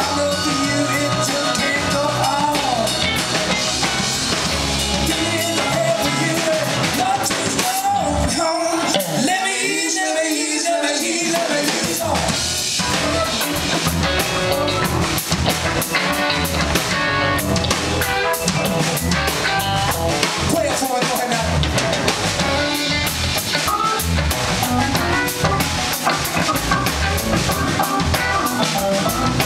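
Live band playing funk in a New Orleans style: electric guitar, keyboards, bass guitar and drum kit in an instrumental passage. About eight seconds in, the bass and drums drop out for roughly three seconds, then the full band comes back in.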